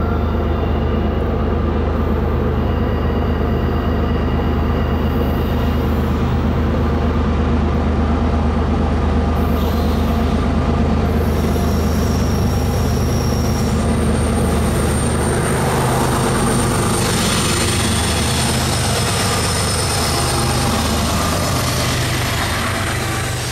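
CN freight train rolling past: diesel locomotive engines drone steadily, then fade about two-thirds of the way through as the rail cars take over with a rising hiss of wheel-on-rail noise. Faint, thin steel wheel squeal sounds in the second half.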